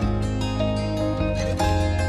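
Instrumental background music: a gentle plucked-string melody over held bass notes.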